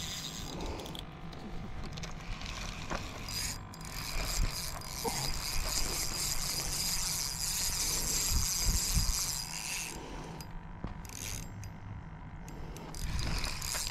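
Spinning reel being cranked: a steady mechanical whir of its gears and bail, strongest from about four seconds in until near the ten-second mark.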